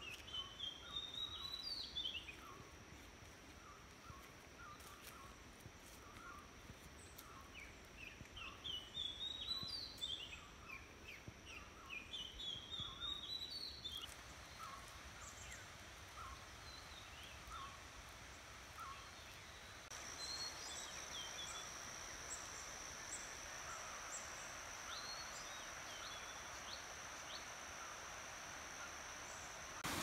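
Faint forest ambience with birds calling: runs of short notes climbing in pitch, repeated several times, over lower single notes about once a second. About two-thirds in, a thin, steady high tone comes in and holds.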